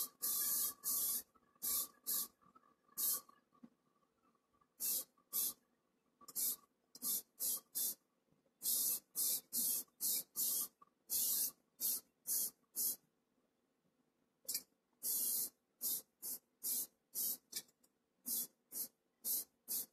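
Primer being sprayed in a run of short hissing bursts, some about a second long, with brief pauses between them as each part of a model trailer is coated.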